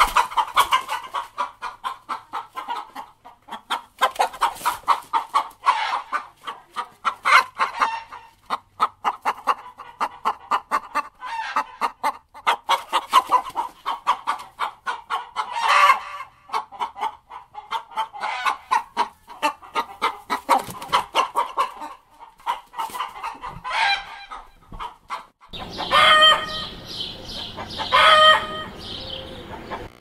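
Domestic chickens clucking in quick, dense runs of short calls, with a few louder squawks. Near the end the background changes and two louder, longer calls come about two seconds apart.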